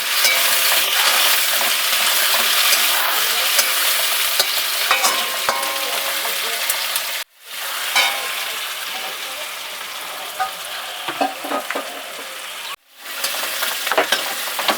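Sliced onions sizzling in hot oil in a kadai, stirred with a spatula that clicks and scrapes against the pan as they fry toward brown. The sound drops out briefly twice, about halfway through and near the end.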